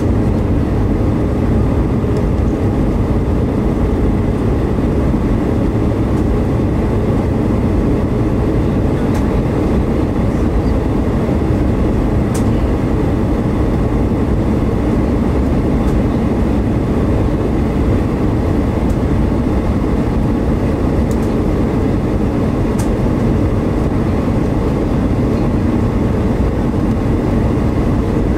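Steady cabin noise inside an Airbus A320-232 descending on approach, heard from a window seat beside its IAE V2527-A5 turbofan engine: the engine running and air rushing past the fuselage as an even, deep roar. A few faint ticks sound now and then.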